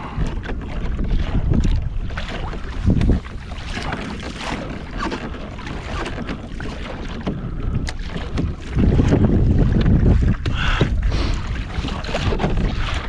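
Wind buffeting the microphone on a kayak under way, with water splashing and sloshing along the hull. The gusts swell, loudest about nine seconds in.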